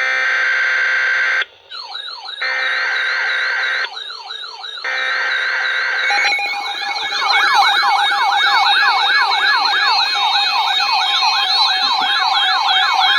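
Emergency alert attention signal: a steady chord of several electronic tones is twice broken by a wailing siren-like sweep. From about six seconds in, several wailing tones overlap, rising and falling rapidly over a steady tone.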